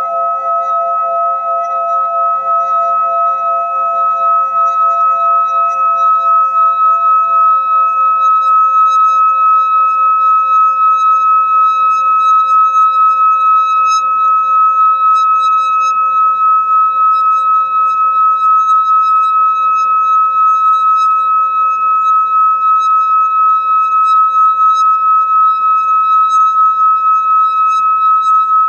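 Singing bowl ringing in a long sustained tone of several overlapping pitches, its loudness pulsing in a slow, even waver. A couple of lower pitches die away within the first few seconds.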